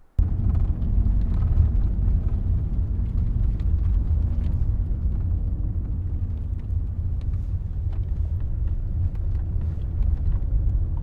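Inside a car's cabin while driving: a steady low rumble from the moving car, with faint scattered ticks.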